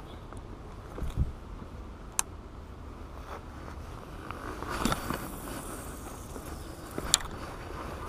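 Handling noise from fishing gear and clothing: a jacket rustling and scraping, with a few sharp clicks and taps of tackle as bait is worked onto a hook.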